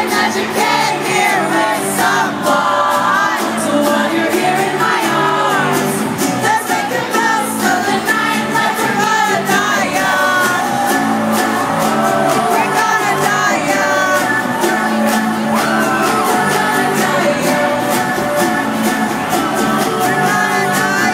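Live pop concert heard from the audience: a female singer over loud amplified backing music from the PA.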